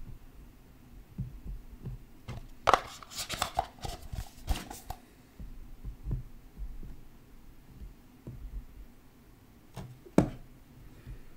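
Handling noises of a trading-card box and its cards being worked by hand: soft knocks, a busy stretch of scraping and rustling a few seconds in, and one sharp click near the end.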